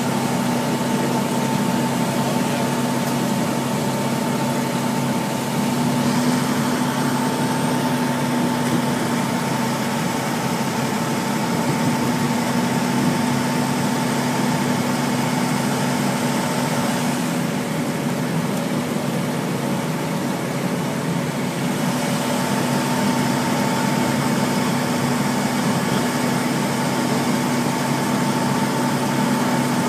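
Fire engine's motor running steadily, a continuous unbroken drone with a steady hum.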